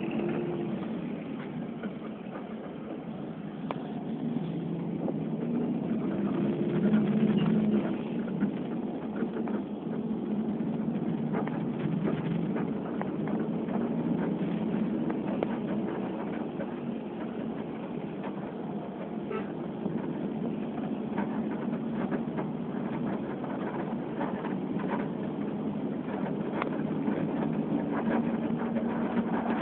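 An engine running steadily, its pitch drifting a little up and down.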